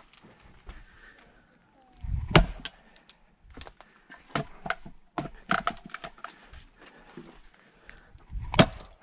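An axe splitting firewood: two hard blows about six seconds apart, each a sharp crack. Between them come lighter wooden knocks and clatter from split pieces.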